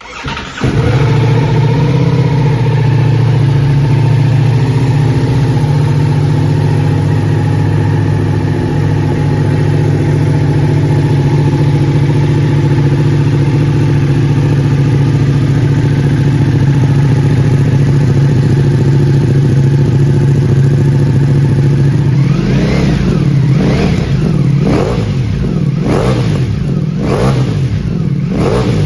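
Ducati Multistrada V4 S's V4 engine through a full Akrapovic racing exhaust, starting about half a second in and then idling steadily. From about 22 s the throttle is blipped about six times, roughly once a second, each rev rising and falling back to idle.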